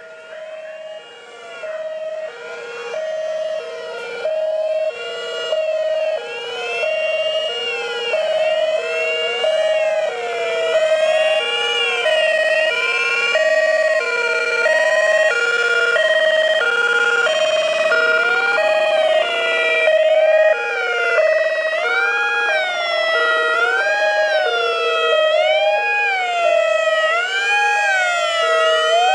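Several police sirens from vintage Eastern Bloc police cars sounding together: a two-tone horn switching steadily between a low and a high note, overlapped by wailing sirens rising and falling about once a second. They grow louder over the first ten seconds or so as the cars approach.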